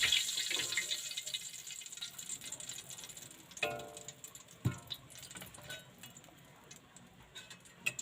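Water running from a tap into a sink, fading out over the first couple of seconds, followed by a few short knocks and clinks, one with a brief ring.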